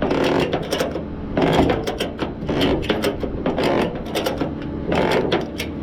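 Ratchet mechanism cranked in repeated strokes, giving clusters of sharp clicks, over a steady low engine hum.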